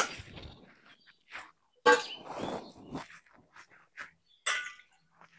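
Hand food-preparation noises: a sharp knock of a steel bowl at the start, then scattered scraping and crinkling as dough is scooped out and pressed onto dry sal-leaf plates, with a louder noisy stretch about two seconds in and another sharp sound near the end.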